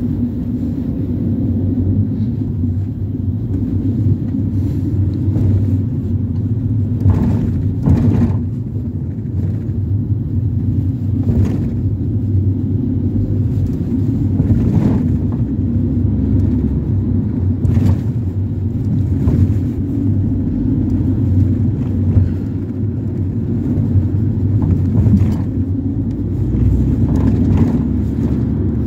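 Ford Transit minibus on the move, heard from inside the cabin: a steady engine and road rumble, with a short knock or rattle from the body every few seconds.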